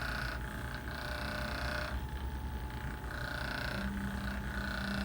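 A padded chiropractic treatment table creaking in a series of separate creaks, each under a second, as the chiropractor presses on the back of a patient lying face down.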